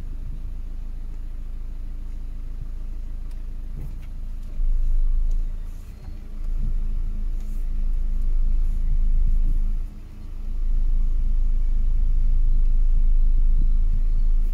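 Low rumble inside a car's cabin over a steady hum, as the car is manoeuvred in reverse; the rumble swells up about four and a half seconds in and dips briefly twice.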